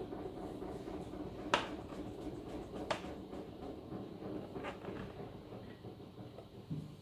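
Sharp plastic clicks as the jar of a Philips Avent baby-food steamer-blender is handled and twisted round on its base: two clear clicks about a second and a half apart, then a softer one. A steady low hum runs underneath and fades toward the end.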